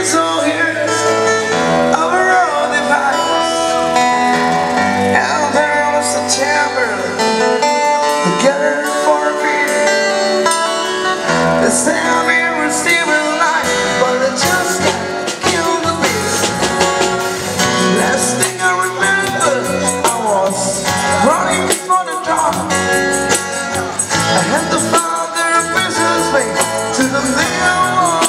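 Amplified live street performance: a man singing in a husky voice while strumming an acoustic-electric guitar, through a PA speaker.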